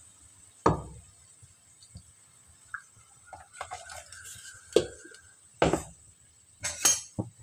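Kitchen containers and utensils being handled: a few sharp knocks and clinks, the loudest less than a second in and others around five, six and seven seconds in.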